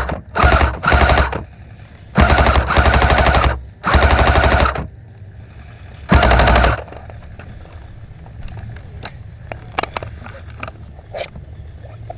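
Airsoft electric rifle firing six full-auto bursts in the first seven seconds, each a fast rattle of shots, the longest about a second and a half. After that only scattered faint clicks and pops.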